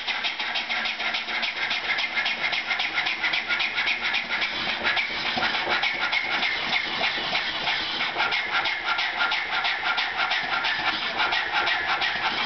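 Old horizontal stationary steam engine running with its flywheel turning, making a fast, steady rhythmic beat that does not change.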